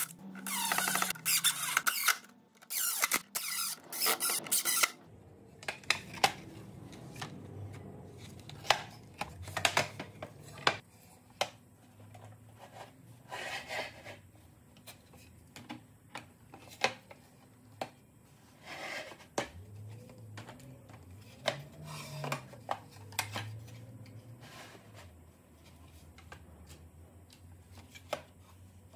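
Hand work on wood: a few seconds of quick scraping or rasping strokes, then scattered knocks, clicks and short rubs as wooden pieces and tools are handled.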